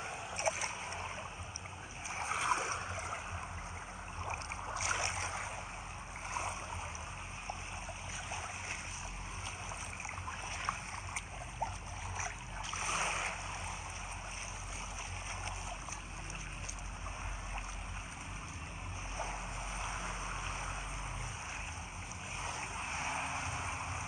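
Shallow seawater sloshing and splashing around a wader's hand and feet, with a few louder splashes, over a steady low rumble.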